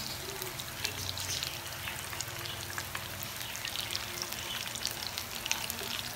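Breaded pizza rolls deep-frying in hot oil in a pan: a steady sizzle with scattered crackles and pops.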